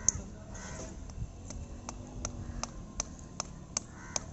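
Hammer tapping nails into an iron shoe on a bull's cloven hoof: one sharp tap at the start, then after a short pause a steady run of light, even taps, a little under three a second.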